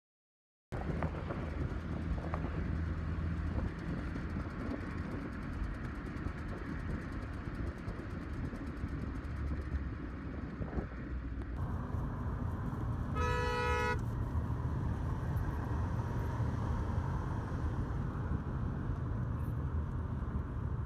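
Steady rumble of road traffic, with a vehicle horn sounding briefly about thirteen seconds in.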